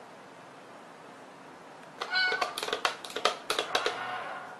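A short meow about two seconds in, followed by a quick run of clicks and knocks as a cat paws and swats at a small box-shaped toy with a lid.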